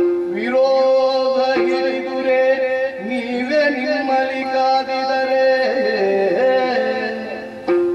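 Yakshagana bhagavata's male voice singing a verse in long, wavering held notes over a steady drone.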